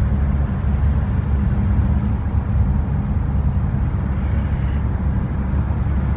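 Steady low rumble of a car's engine and tyres heard inside the cabin while driving through a road tunnel.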